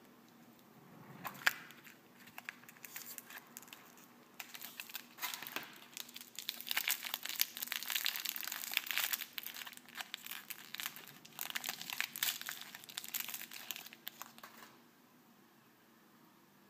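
A sharp snap as a plastic toy capsule is pulled open, then the clear plastic wrapper around a small figurine crinkling and crackling as it is unwrapped. The crinkling stops about two seconds before the end.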